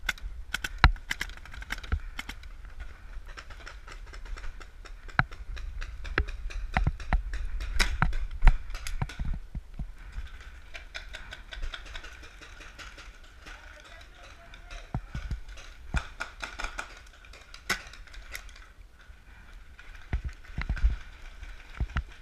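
Paintball markers firing across the field: irregular sharp pops, some single and some in quick runs, thickest in the middle of the stretch, over a low wind rumble on the helmet camera.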